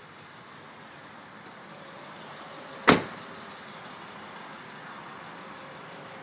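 A car door being shut: one sharp thud about three seconds in, over a steady background hiss.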